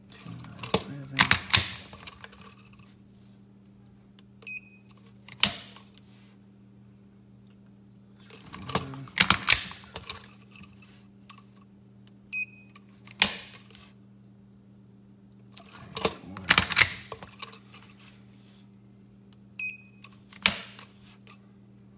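Glock 19 pull test with a Lyman electronic trigger pull gauge, repeated three times: a quick run of clacks as the pistol is worked to reset the trigger, a short beep from the gauge, then a single sharp click as the trigger breaks. Over the three pulls the gauge records an average of about 3.3 pounds, down from the stock 5.5 to 5.8 but still heavier than the gunsmith wants.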